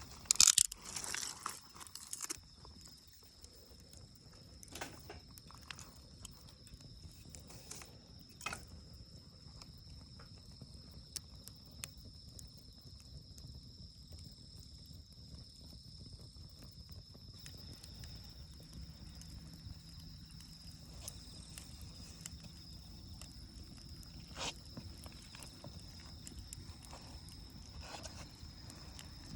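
Campfire crackling, with a burst of loud pops in the first couple of seconds and scattered single pops after, over a steady high-pitched chirring of late-summer insects.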